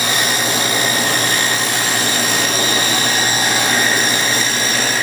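Power saw running with a steady high whine while cutting a rabbet joint into a wooden beehive box end piece. The whine shifts and drops right at the end.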